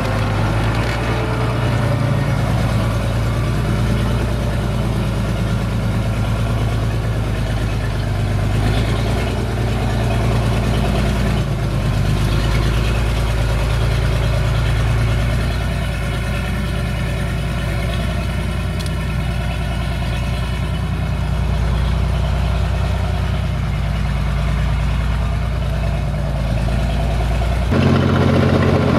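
SAME Laser 110 tractor's diesel engine running steadily at low revs. Near the end the sound changes abruptly to the engine heard from inside the cab.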